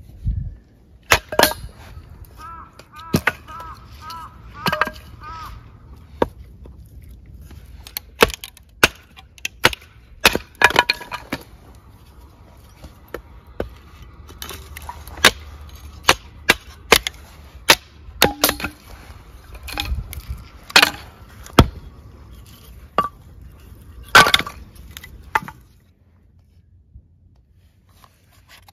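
Firewood being split by hand into kindling on a round wooden chopping block: a long series of sharp, loud chops and cracks of splitting wood, irregularly spaced.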